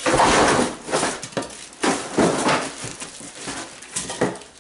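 Cardboard box and plastic wrapping rustling and crinkling in irregular bursts as a wrapped drum shell is handled and lifted out of its box. The loudest burst is right at the start, with more about two seconds in.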